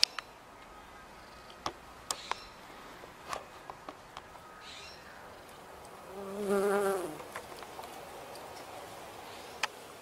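Honeybee buzzing close by: a brief, loud, wavering wingbeat buzz about six and a half seconds in, over a faint steady hum, with scattered sharp clicks and ticks.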